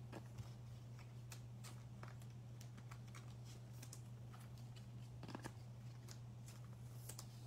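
Faint clicks and light rustles of trading cards being handled and laid down on a mat, over a steady low hum.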